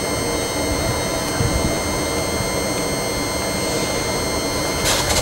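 Thameslink Class 700 electric multiple unit standing at the platform, its onboard equipment giving a steady hum with several fixed high whining tones. Near the end a rougher, louder noise comes in over it.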